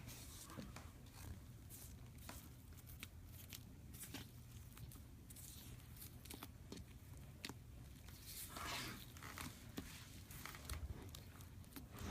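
Foam slime (slime mixed with foam beads) being squeezed and worked by hand, giving faint, scattered crunchy crackles and pops, with a louder squishing rustle about two-thirds of the way through.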